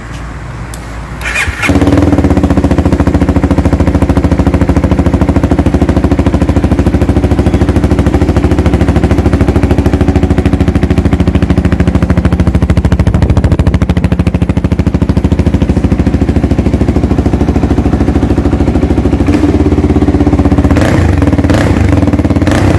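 CFMoto 250SR's single-cylinder engine catching about two seconds in, then idling steadily and loud with an even pulse through a Yoshimura full-system aftermarket exhaust.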